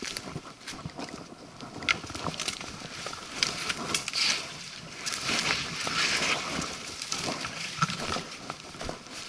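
Footsteps crunching through dry leaf litter and twigs, with branches and brush rustling and scraping past. The sound is uneven and crackling, with a thicker stretch of rustling in the middle.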